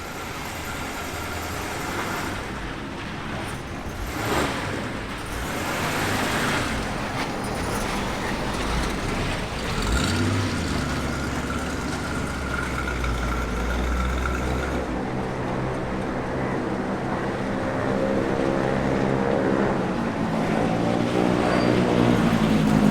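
Car sounds: engine and road noise surging in the first half, then an engine running with its pitch climbing near the end, like revving.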